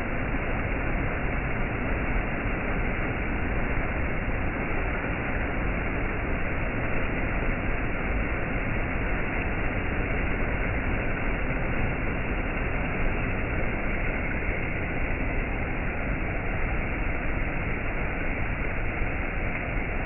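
Shallow rocky stream rushing and splashing over low rock ledges and stones: a steady, even rush of water.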